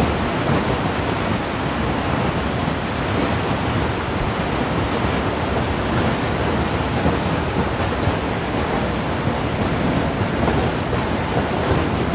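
Hailstorm: hail and rain pelting down in a steady, dense patter of countless small impacts, with no let-up.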